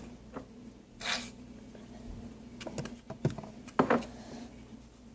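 Quiet handling noises from slime-making: a short rustle about a second in, a few small clicks around the middle, and another brief rustle near four seconds.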